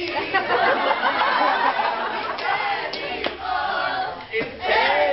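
A group of young voices chanting and singing together over crowd noise, with a few sharp claps.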